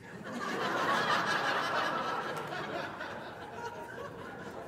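Studio audience laughing at a punchline. The laugh swells to its loudest about a second in, then slowly dies away.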